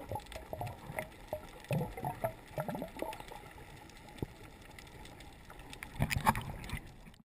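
Water splashing and gurgling in irregular bursts, with a louder flurry about six seconds in, then cutting off abruptly.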